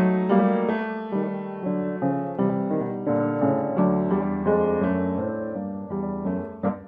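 Solo piano music playing a run of notes, dying away near the end.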